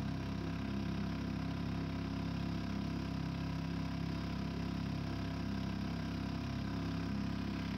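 Boat motor running steadily at an even speed, a constant engine hum with no change in pitch.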